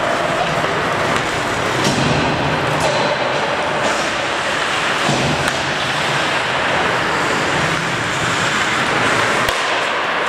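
Steady noise of an ice hockey game in an arena rink, with several sharp clacks of sticks and puck, the loudest near the end.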